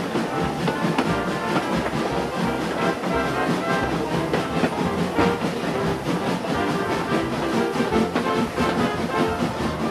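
Background instrumental music at a steady level, its notes shifting throughout.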